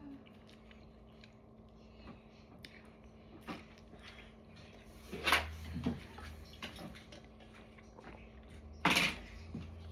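Quiet eating sounds: chewing and small mouth and utensil clicks, with two short, louder noisy sounds about five and nine seconds in.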